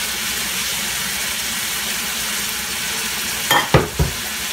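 Onions and red and green peppers in a thin curry sauce sizzling steadily in a frying pan, a little water just added. Near the end, two short dull knocks.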